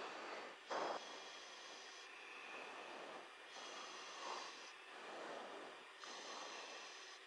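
Open cockpit intercom: a steady hiss with a person's breathing, each breath swelling and fading about every second or so. A brief, louder burst of noise comes just under a second in.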